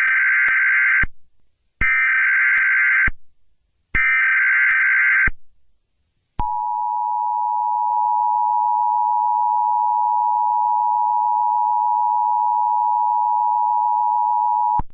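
Emergency Alert System tones: three bursts of SAME header data, a raspy warbling buzz about a second and a half long each with short gaps between, then the EAS attention signal, a steady two-pitch tone held for about eight seconds that cuts off near the end.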